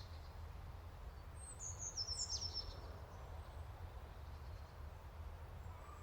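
A songbird sings one short phrase of high, quick, falling chirps about a second and a half in, over a steady low rumble of outdoor ambience.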